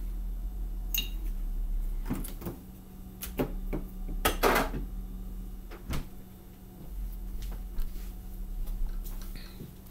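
Scattered knocks, clicks and a brief scrape as a person handles things in a kitchen by the table and chair, getting ready to sit down, with a steady low hum underneath.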